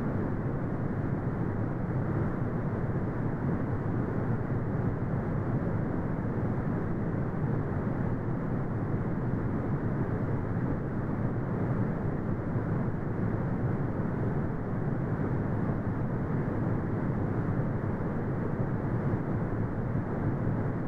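Continuous brown noise: a steady, deep rumbling hiss with most of its weight in the low end and almost nothing above the treble, unchanging throughout.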